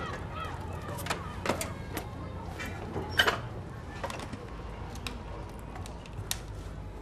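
A series of sharp metallic clicks and clanks as a small motorcycle is handled and wheeled by hand, the loudest knock about three seconds in, over a low steady rumble.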